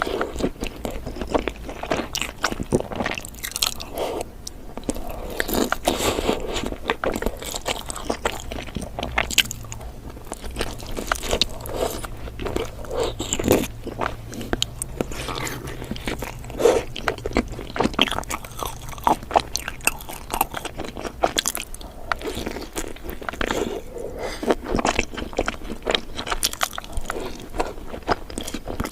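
A person biting and chewing glazed donuts, a continuous irregular run of short crunching clicks.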